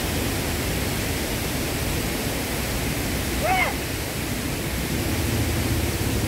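Steady rushing outdoor background noise at a riverbank, with one short rising-and-falling call about three and a half seconds in.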